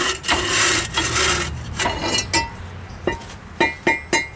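Rusty rear brake rotor on a 2002 Chevy TrailBlazer scraping and grinding as it is twisted and worked off the hub over the drum-in-hat parking brake shoes. It ends with several light metallic clinks, some ringing briefly.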